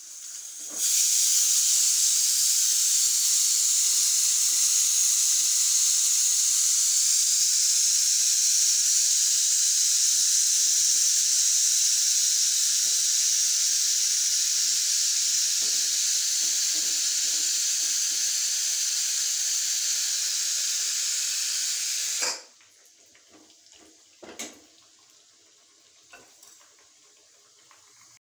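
Stovetop pressure cooker on a gas burner letting off steam through its whistle vent: a loud, steady hiss that starts abruptly about a second in and cuts off sharply about 22 seconds in. A couple of light knocks follow.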